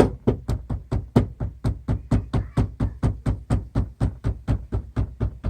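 A hammer tapping through a dishcloth on the metal window gusset of a Subaru Forester door, about five quick, even taps a second. The tapping closes up the spread gusset, whose gap causes wind whistle while driving.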